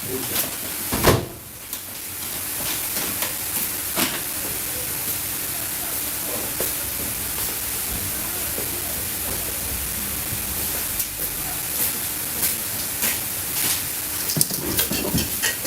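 Vacuum packaging machine drawing the air out of a bag of roast meat: a steady hiss with a faint low hum, starting after a sharp click about a second in.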